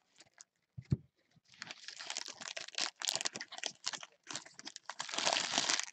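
A trading-card pack wrapper crinkling and tearing as it is ripped open and pulled off the cards, in two long stretches of crackle, loudest near the end. A soft knock comes about a second in.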